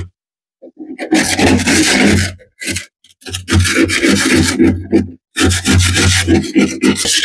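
Frost and ice being scraped off the inside wall of a chest freezer during defrosting, in three long rasping stretches with short pauses between them. The scraping starts about a second in.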